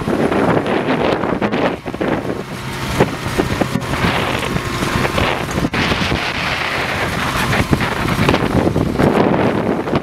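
Case IH 230CVX tractor pulling a Kverneland five-furrow reversible plough through the field: a steady, noisy rush of diesel engine and turning soil, with wind buffeting the microphone.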